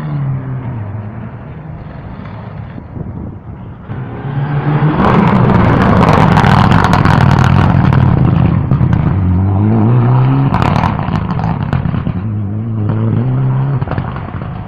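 Rally car passing at speed, its engine revving up and down several times as it goes through the gears. It is loudest in the middle, with sharp crackles around the loudest part.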